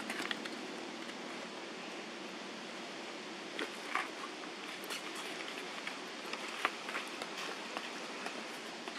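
Quiet outdoor ambience: a steady, even hiss with a few soft clicks and rustles scattered through it, the clearest about four seconds in.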